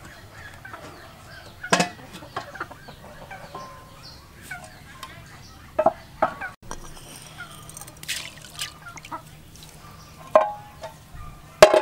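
Chickens clucking, with several sharp clanks from an aluminium cooking pot and its lid being handled on a clay stove. The loudest clank comes near the end.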